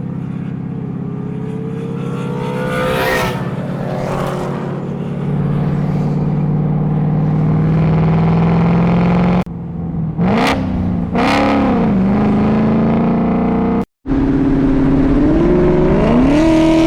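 Several Ford Mustang engines running and revving as cars drive off in a group, with some passing close by; the revs climb and fall more than once.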